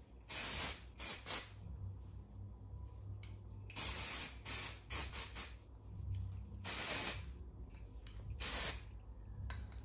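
Aerosol dry shampoo can sprayed into the hair roots in a series of short hissing bursts, each under a second long, several of them close together about four to five seconds in.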